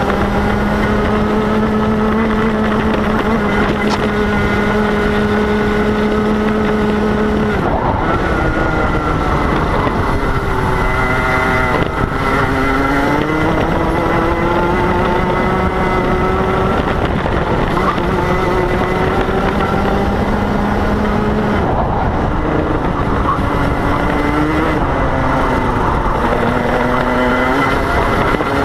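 Rotax Senior MAX kart's 125 cc single-cylinder two-stroke engine at racing speed, heard onboard. It holds one steady high note on the straight, drops sharply about seven and a half seconds in as it slows, then rises and falls repeatedly through the corners.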